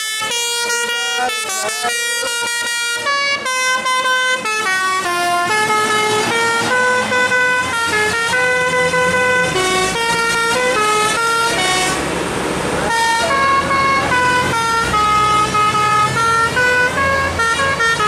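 Bus telolet horn, a multi-tone air horn, playing a melody of stepped notes. The passing bus's engine rumbles underneath, with a brief rush of noise about two-thirds of the way in.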